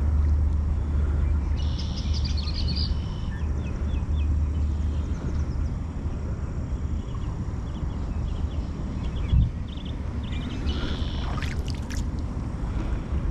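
Small birds chirping in short repeated phrases over a steady low rumble, with a single dull knock about nine seconds in.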